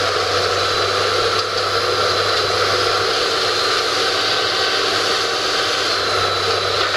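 Demolition excavator with a sorting grapple running steadily under load, its engine and hydraulics giving a constant drone with a high whine on top, as the grapple arm swings.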